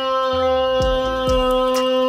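Background music: one long held note over a steady beat of deep bass drums that drop in pitch, about two hits a second.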